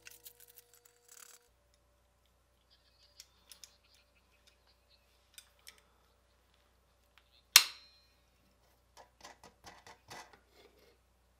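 Locking pliers and small metal fittings clicking on a metal paint-can lid, with one loud, sharp snap about two-thirds of the way in and a run of small clicks after it.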